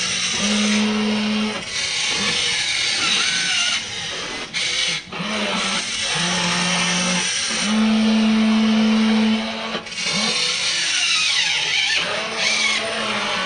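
WLtoys RC toy excavator's small electric gear motors whining, starting and stopping in spells of one to two seconds as different functions are run, over steady mechanical noise.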